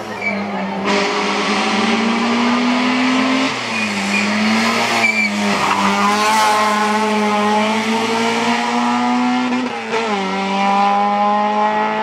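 Peugeot 106 rally car's engine at hard throttle. The pitch climbs steadily in long pulls and drops sharply at each upshift, three times.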